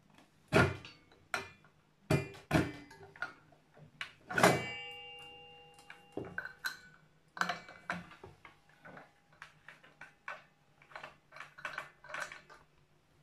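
Irregular knocks and clicks of metal parts as a circular saw is handled during blade fitting. One loud knock about four and a half seconds in rings on briefly like struck metal.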